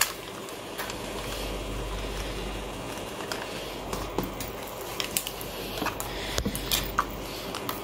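Quiet room tone: a steady low hum and hiss with scattered small clicks and taps, a slightly louder knock right at the start.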